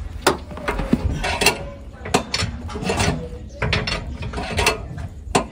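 Metal hand tool being worked at a car's wheel during a tyre change: a series of irregular metallic clicks and ratcheting rattles.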